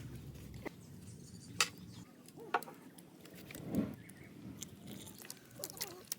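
Handling noise in a kitchen: a few sharp clicks and light knocks of things being picked up and set down, the loudest near the middle, over a low steady hum.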